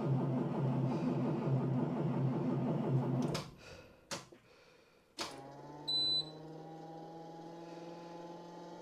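A school bus's electric brake booster pump whirs steadily with the key on, struggling in the extreme cold, then cuts off about three and a half seconds in. A few sharp clicks follow, then a fainter steady electrical hum with one short high beep about six seconds in.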